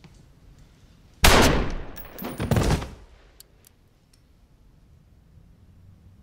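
A single gunshot in a small room, sudden and very loud about a second in, dying away over half a second, followed about a second later by a second, heavier burst of lower noise.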